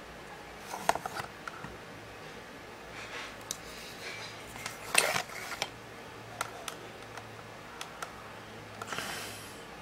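Handling noises of a plastic USB digital microscope being turned over in the hands: scattered light clicks and knocks, the loudest about halfway through, and a short rustle near the end. A faint steady low hum runs underneath.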